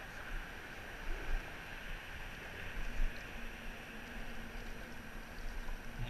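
Steady wind and river-water noise, with a faint steady engine hum from about three seconds in until near the end.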